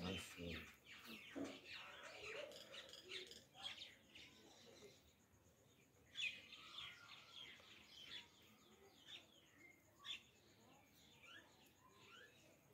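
Faint birds chirping in the background, many short scattered calls.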